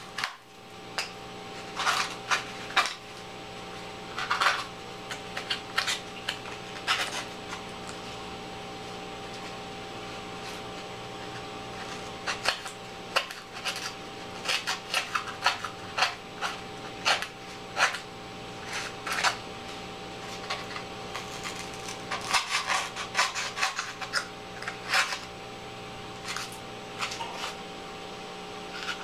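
Irregular scratchy rubs and clicks from a craft knife and hands working a foam-board box. Under them runs a steady low hum.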